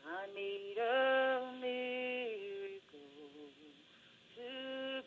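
A singer's voice in a slow song, sliding up into long held notes; the notes drop lower and quieter past the middle, then a new held note begins near the end.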